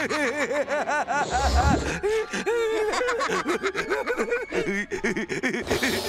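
Cartoon characters laughing: rapid, repeated cackling ha-ha syllables, about four or five a second, with more than one voice overlapping.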